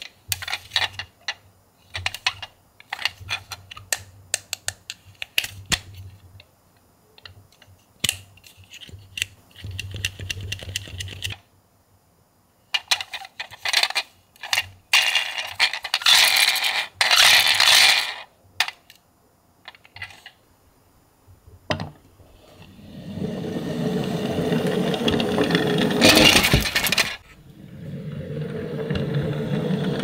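Toy ambulances being handled: many quick clicks and clinks of small plastic and die-cast parts, then denser rattling stretches, and in the last third a longer steady noise with a brief loud burst in it.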